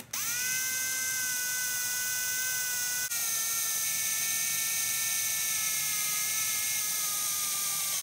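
Power drill with a 1/8-inch bit boring into the metal housing of a Mercedes W204 electronic steering lock (ESL). A steady high motor whine that spins up at the start, breaks off briefly about three seconds in, sags slightly in pitch under load and stops abruptly at the end.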